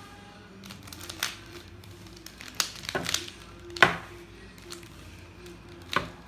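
Irregular plastic clicks and clacks of a mirror cube's layers being turned by hand, a handful of sharp clicks with the loudest about four seconds in.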